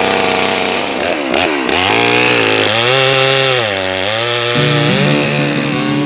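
Two-stroke engine of a big Holzfforma chainsaw with a long bar running and being revved: engine speed climbs, holds, dips and climbs again. Acoustic guitar music comes in under it a little past halfway.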